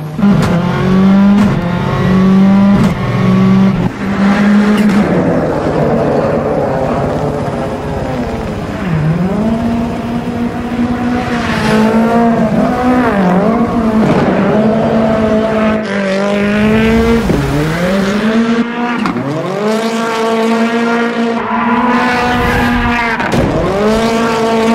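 A car engine revving hard while drifting, its revs held high and, in the second half, repeatedly dropping briefly and climbing back as the throttle is lifted and reapplied, with tyres squealing as they spin and smoke on the tarmac.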